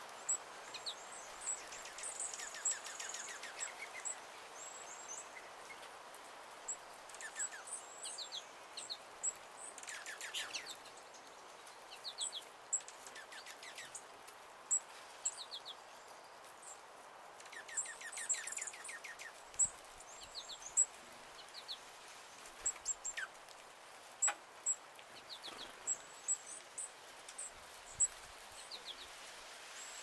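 Small songbirds calling: many short, high chips scattered throughout, with brief runs of quick twittering notes here and there, over a steady background hiss.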